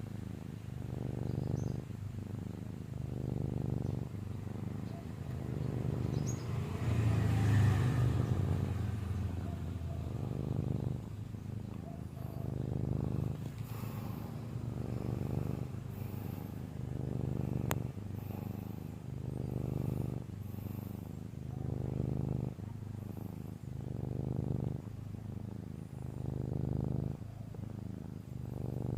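Snoring in deep sleep: a low snore with each breath, repeating about once every two seconds.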